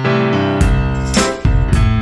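Added soundtrack music: a keyboard playing notes, with a steady beat of sharp hits coming in about half a second in, roughly two a second.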